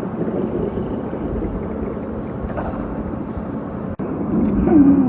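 A hungry, empty stomach growling: a continuous low, gurgling rumble, with a short break about four seconds in and a growl that falls in pitch near the end.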